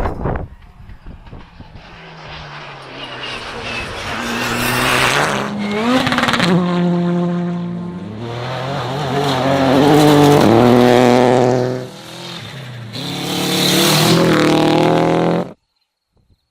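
Rally car engine at high revs, climbing and dropping in steps through gear changes as the car comes closer and gets louder. It eases briefly, revs hard again, and the sound cuts off suddenly near the end.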